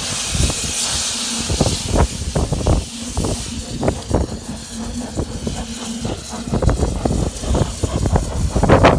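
Double Fairlie narrow-gauge steam locomotive 'Merddin Emrys' running slowly into the platform. Steam hisses loudly at first, and irregular thumps and knocks carry on throughout.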